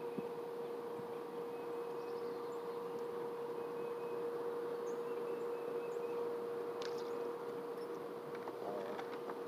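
Steady outdoor background noise with a constant low hum, a few faint high chirps and a couple of small clicks near the end.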